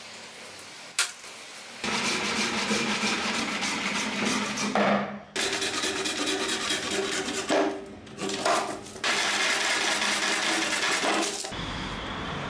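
Hand saw cutting through a dry wooden branch: a steady rasping of the teeth, with a few short breaks between runs of strokes. It starts about two seconds in and stops shortly before the end.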